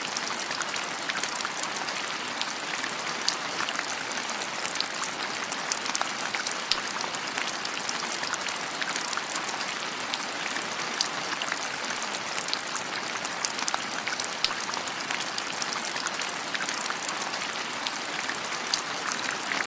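Steady rain falling, a constant hiss with many sharp drops pattering on a surface.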